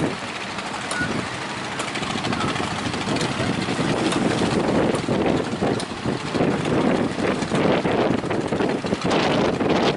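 Speedboat engine running, mixed with strong wind rushing over the microphone.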